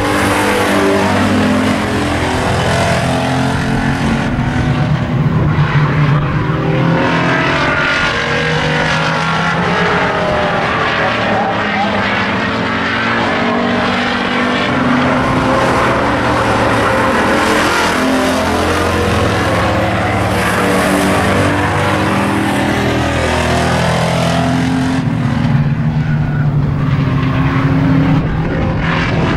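Hobby stock race cars' engines running hard around a paved oval, several at once, pitch rising and falling as the cars accelerate, lift and pass.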